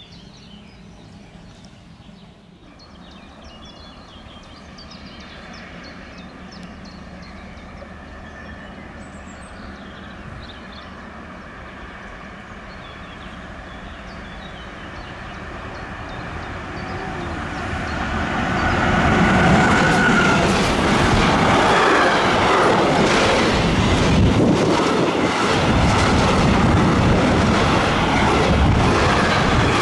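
Intermodal freight train hauled by an SBB Cargo Re 482 electric locomotive, approaching and passing close by. It grows steadily louder over roughly the first twenty seconds, then the wagons carrying truck trailers and containers rumble past with a rapid clickety-clack of wheels over the rails.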